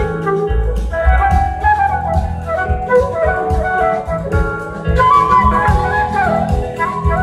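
Live band music: a flute carries a winding melody over electric bass and drums.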